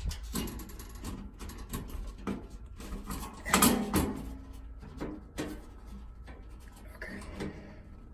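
Irregular knocks and scraping as a refrigerator's rear service panel is handled and positioned for its screws, with the loudest knocks about three and a half to four seconds in and again a little later.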